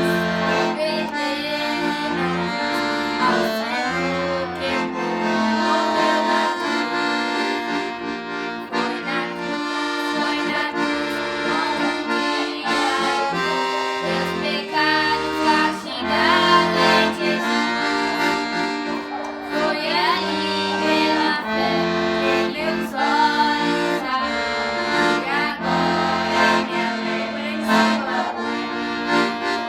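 Sanfona (accordion) playing a worship melody over repeating low bass notes.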